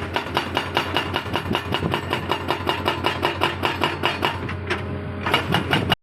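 Excavator-mounted hydraulic breaker hammering in a rapid, steady rhythm of many blows a second, over the steady hum of the excavator's engine.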